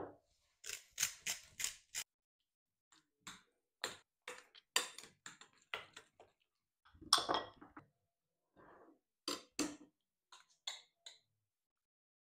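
A metal fork stirring and scraping thick tartar sauce in a ceramic bowl: quick clinks and scrapes of metal on china in short runs with pauses. It opens with a knock as a spice jar is set down on the wooden table.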